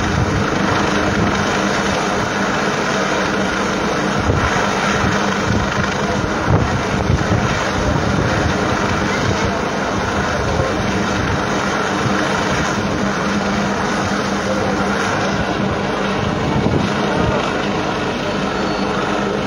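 Helicopter hovering, its rotor and engine noise steady throughout, with wind buffeting the microphone.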